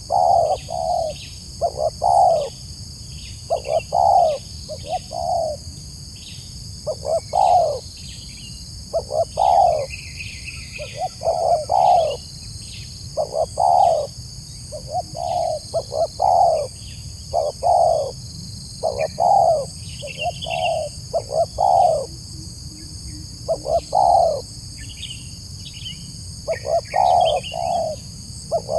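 Spotted dove (tekukur) cooing over and over, a crisp-voiced male giving phrases of two or three coo notes about every two seconds.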